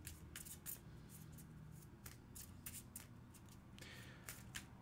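Faint hand shuffling of a deck of oracle cards: a run of soft, irregular card clicks and slaps.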